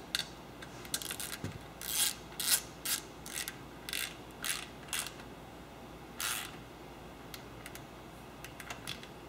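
Hand ratchet clicking in a series of short bursts as nuts with washers are run down onto the oil sump studs of a Turbo Aerovee engine. The bursts end about six seconds in, and only a few faint ticks follow.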